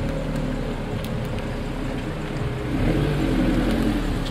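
Honda S2000's four-cylinder engine running at low revs as the car rolls slowly past. The engine note rises and gets louder about three seconds in as it pulls by.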